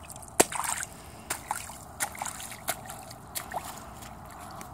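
A small child's rubber boots splashing through a shallow puddle, a step about every 0.7 seconds, the first splash the loudest.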